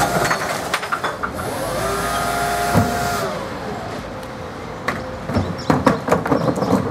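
Rear-loader garbage truck's hydraulic bin lifter tipping a wheelie bin: a whine that rises, holds, then falls away over about two seconds, with a knock partway through, over the truck's running engine. Near the end the plastic bin rattles and clatters as it is set down and wheeled off.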